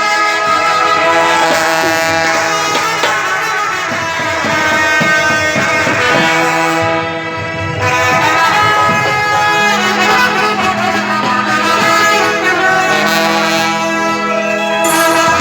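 Indian brass band playing: trumpets and trombones holding a loud melody in long sustained notes, with drum hits through the first half.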